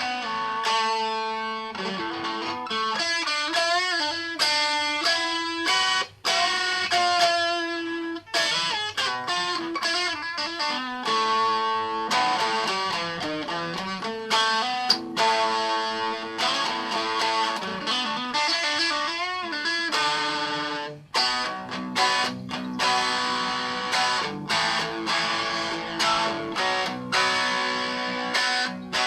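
Instrumental guitar music: an electric guitar playing a melodic lead line with bent notes and effects.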